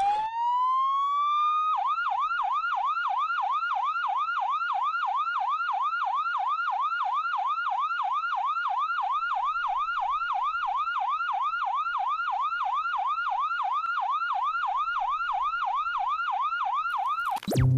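Siren sound effect: a wail rising over the first two seconds, then a fast yelp sweeping up and down several times a second, stopping abruptly near the end.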